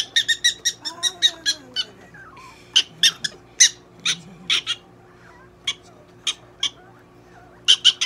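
Prairie dog giving short, shrill squeaking calls while being held and handled: a rapid run of about ten in the first two seconds, then single calls every half second or so, thinning out, with two more close together near the end.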